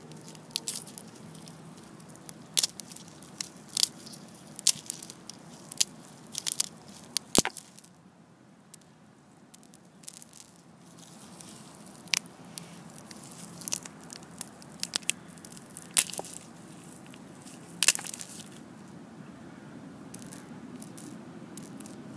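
Dried kernels being shelled by hand off a dried ear of seed corn, with irregular sharp crunching snaps and clicks as they break from the cob. There is a quieter pause about eight seconds in.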